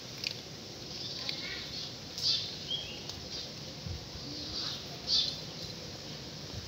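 Cats crunching dry kibble: a run of small crisp crunches and ticks, with a couple of louder crunches along the way.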